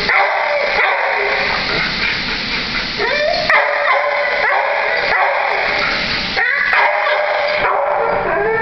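Many dogs in shelter kennels barking and yipping at once, overlapping into a continuous din.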